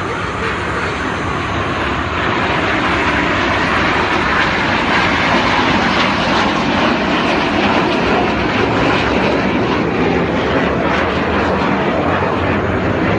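Aircraft engine noise: a loud, even rushing sound that swells over the first couple of seconds and then holds steady.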